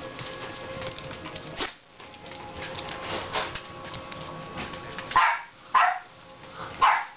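A puppy giving three short, sharp barks in the last two seconds, after several seconds of scuffling and rustling as it plays on a towel.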